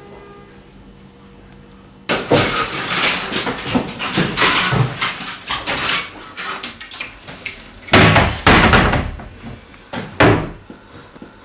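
Rummaging in a wooden cupboard: knocking, clattering and rustling from about two seconds in, with a few loud bangs of wood near the end.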